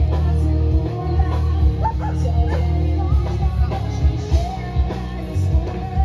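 Live rock music from an outdoor street concert: steady bass notes and a drum beat with singing.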